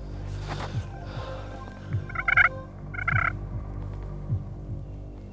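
Wild turkey gobbler gobbling twice, two short rapid rattling calls about a second apart, starting about two seconds in.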